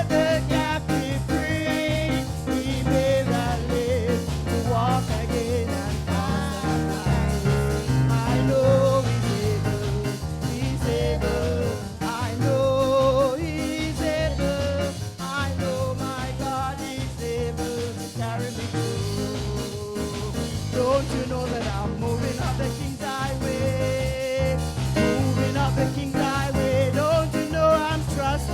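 Church worship music: a singer's wavering melody over instrumental accompaniment with a steady beat.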